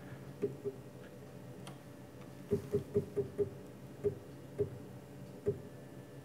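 Stepper motor driving the Z axis of a converted Grizzly G0704 CNC mill, jogged in single small steps: about ten short ticks, each with a brief tone. There is a pair of ticks near the start, a quick run of five in the middle, then three spaced ticks, over a faint steady hum.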